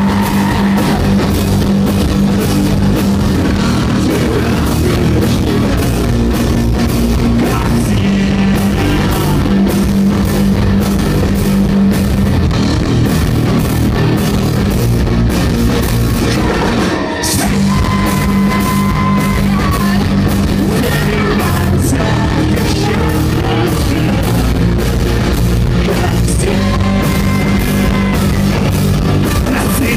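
Live rock band playing loud and steady, with electric guitar, bass and drum kit, and a male and a female singer at times. The band drops out for a moment about halfway through.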